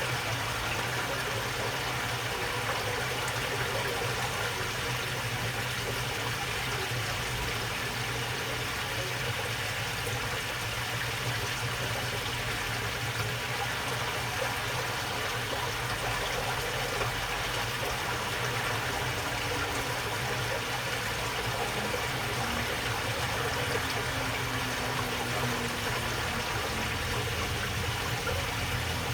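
Water flowing steadily along a small waterway, a continuous babble with a low steady hum underneath.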